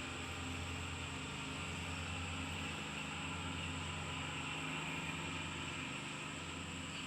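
Steady background machine noise: a constant low engine-like hum with a hiss over it, unchanging throughout.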